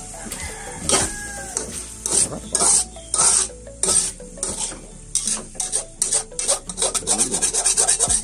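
A cooking utensil stirring and scraping chicken adobo in a sizzling pan of soy sauce and sugar, the strokes quickening to several a second in the second half.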